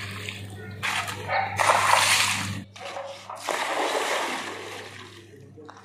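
Water thrown from a metal bucket, splashing onto a concrete floor and the bare base of a wall in three rushing throws that fade away. The surface is being wetted before cement plaster is applied.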